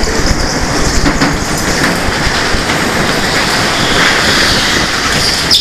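Go-kart running on the track: a loud, steady rumbling rattle, with a brief high squeal near the end.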